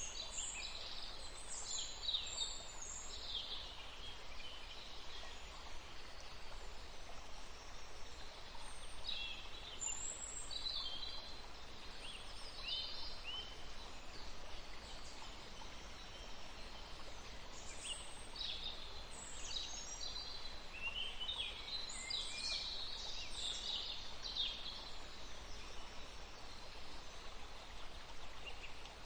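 Forest ambience: small birds chirping and trilling in short, scattered bursts over a steady background hiss.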